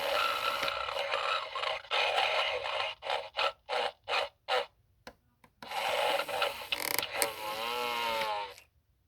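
Gemmy animated Homer Simpson figure playing a snoring sound through its small speaker: two long rasping snores with a short pause between them, the second ending in a wavering whistle-like tone.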